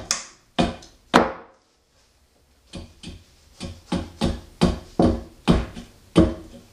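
A 19-inch Wetterlings axe chopping into a split, freshly fallen maple billet, taking off big chunks to rough-shape a spoon handle. Three blows, a pause of about a second and a half, then a steady run of blows about two a second that get louder.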